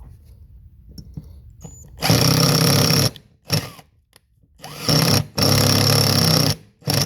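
Power drill driving a self-tapping pan bolt into a Stihl MS 193T chainsaw cylinder to cut threads, run in short on-off bursts: about a second's run, a brief blip, two longer runs, and a short blip at the end. Faint handling ticks before the first run.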